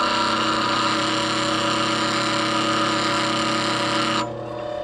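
Lathe parting tool being ground against the fine stone of a bench grinder run at low speed: a steady grinding hiss over the grinder motor's hum, which stops about four seconds in when the tool comes off the wheel, leaving the motor humming.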